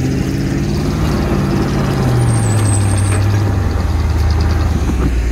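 Tube-frame rock-crawling buggy's engine running at low revs as it crawls over boulders, the engine note easing slightly lower over a few seconds.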